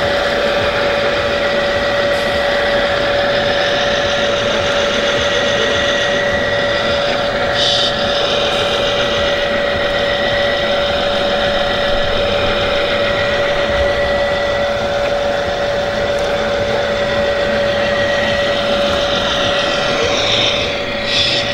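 Steady, constant-pitched whine of a radio-controlled model's electric hydraulic pump running continuously. There is a brief rattle about eight seconds in and again near the end.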